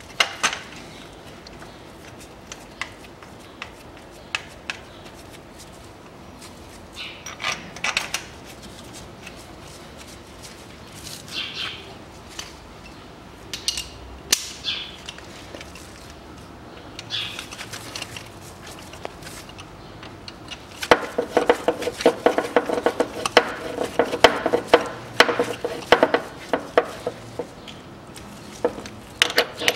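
Metal tools clinking as they are handled, then a ratchet wrench clicking rapidly for several seconds about two-thirds of the way through as it tightens a bolt of the timing-belt tensioner.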